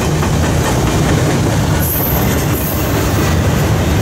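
Double-stack intermodal freight train passing close by: a steady loud rumble of steel wheels on rail, with a brief high squeal about two seconds in.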